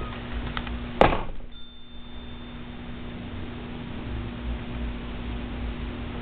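Indoor room tone with a steady low electrical hum, broken by one sharp click about a second in.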